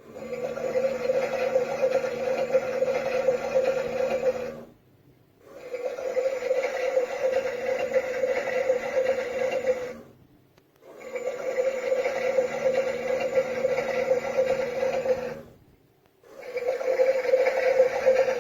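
Theo Klein Bosch toy washing machine running, a steady whirring sound in runs of about five seconds that fade out into short pauses three times.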